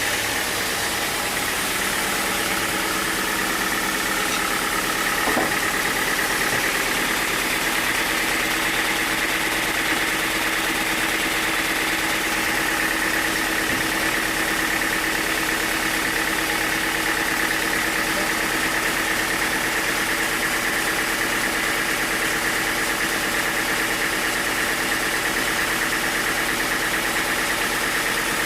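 Sawmill engine running steadily, with a steady high whine over the even machine noise.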